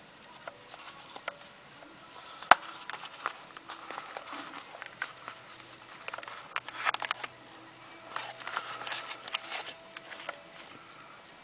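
A black screwdriver pouch being handled and opened: one sharp snap about two and a half seconds in, likely its press-stud popping open, then crinkling and rustling of the pouch material with scattered light clicks as it is unfolded around the screwdrivers.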